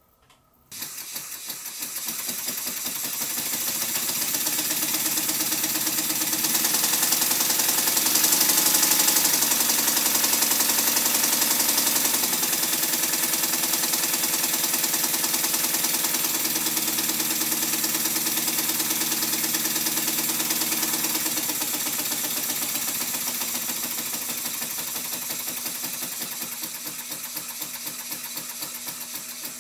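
Small single-cylinder model steam engine running on compressed air: a loud hiss of air with a fast, even beat from the engine, starting suddenly about a second in. Its speed rises and falls several times and eases off near the end.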